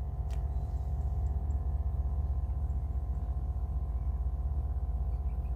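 A steady low machine hum with a fast, even flutter and a faint steady tone above it, like a motor or pump running.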